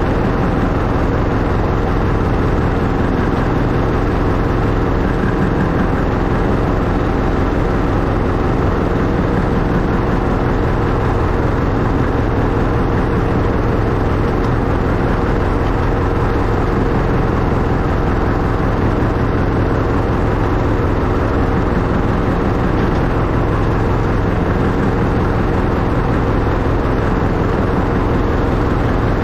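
Miniature railway locomotive, a Class 91 InterCity replica, running steadily along the track: a continuous mechanical drone with faint steady tones and no breaks.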